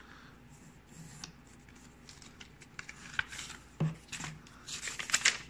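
Bubble wrap and packaging being handled by hand: crinkling and rustling in short bursts, busier and louder near the end, with one light knock a little before the four-second mark.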